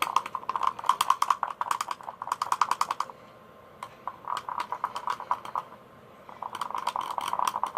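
A pencil stirring slime in a bowl: fast clicking taps against the bowl in quick runs. They pause about three seconds in, come back sparsely, then pick up again near the end. The slime is being mixed right after activator has gone in.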